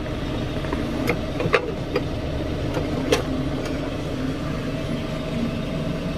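A Perodua Axia's small three-cylinder engine idling steadily, heard inside the cabin, with a few light plastic clicks as a plug is pushed into the cigarette-lighter socket.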